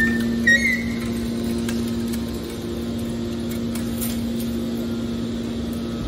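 Hydraulic metal baler's power unit running with a steady hum while the ejector cylinder pushes a pressed scrap bale out, with a brief high squeal in the first second.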